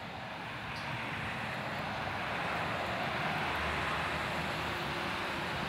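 Street traffic: cars driving past, a steady rush of tyres and engines that fades in and grows louder over the first few seconds.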